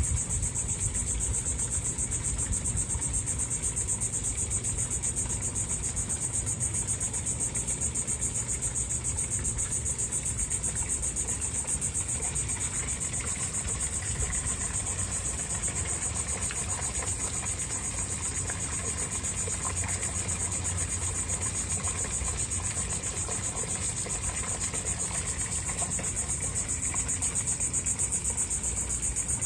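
A steady, high-pitched insect chorus with a fast, even pulse, over a low background rumble.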